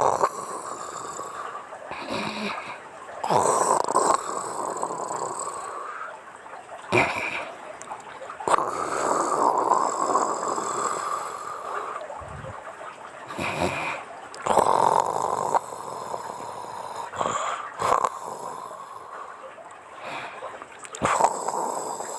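A woman snoring in her sleep, with a long snore every five or six seconds.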